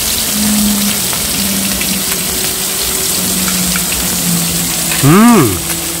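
Pork cubes frying in oil on a camping griddle, a steady sizzling hiss. About five seconds in, a short voice hum that rises and falls in pitch sounds over it.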